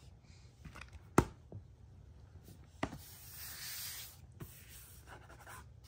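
Two laptop lids being shut on the carpet: a sharp knock about a second in and a softer one about a second and a half later. Then a hand rubs across a closed laptop lid for about a second.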